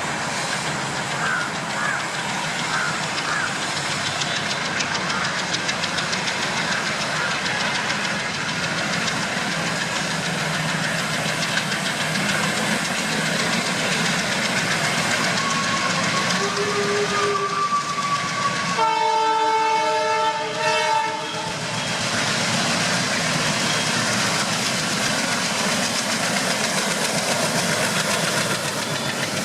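Train running on the track with steady rail noise. About two-thirds of the way through, a diesel locomotive horn sounds for about two and a half seconds.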